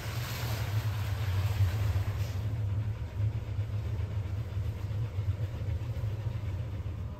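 Route bus's diesel engine idling with a steady low rumble at the stop, with a hiss that fades out over the first couple of seconds.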